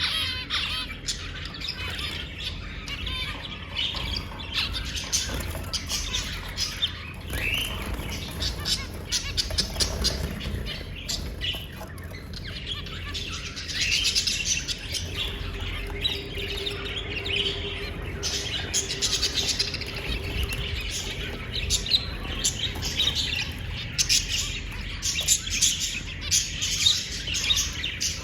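Small parrots chirping and squawking in a steady stream of short, overlapping calls, with louder bursts of chatter now and then.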